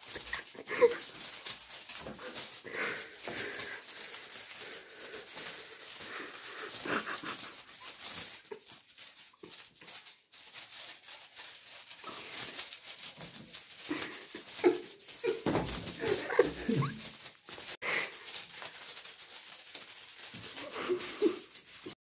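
Kittens playing: short, scattered animal cries, most of them around the middle to late part, among constant rustling and light knocks and scrabbling.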